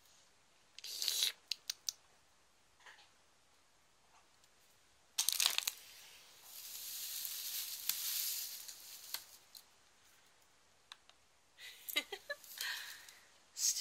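Hands rummaging in a wicker hamper packed with straw: rustling and crinkling, with a few sharp clicks and knocks as items are handled. A longer stretch of rustling runs through the middle.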